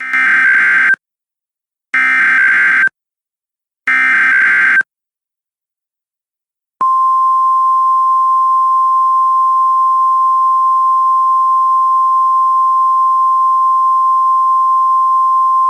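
Emergency Alert System header: three buzzy bursts of SAME digital data tones, each about a second long and a second apart, then after a short silence a steady single NOAA Weather Radio attention tone (1050 Hz) held for about nine seconds, opening a new tornado warning broadcast.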